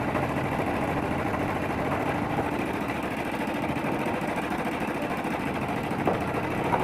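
Large homemade wood lathe running steadily, with a short click about six seconds in.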